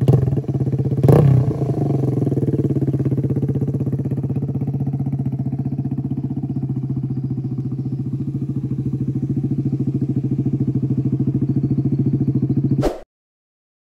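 Kawasaki Z125 Pro's 125 cc single-cylinder engine idling steadily through an aftermarket Yomishura stainless slip-on exhaust, with a quick throttle blip about a second in. The sound cuts off abruptly near the end.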